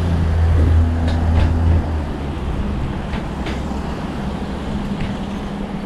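Road traffic noise, with a low engine rumble loudest in the first two seconds before settling to a steadier hum.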